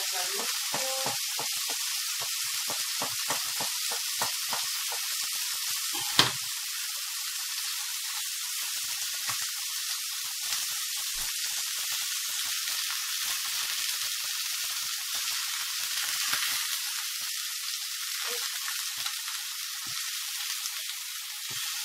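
Chicken fillets frying in oil in a nonstick pan, a steady sizzle. Light knocks come in the first few seconds, and one sharp knock about six seconds in.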